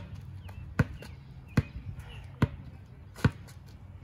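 A basketball being dribbled on an asphalt court: five sharp, evenly spaced bounces, a little more than one a second.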